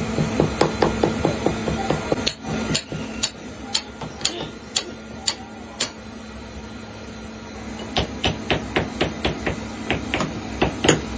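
Hand hammer striking metal in quick runs of taps, about five a second, with slower, harder single blows about two a second in between and a short pause before the last run. It is the metal-shaping work of temple bell making.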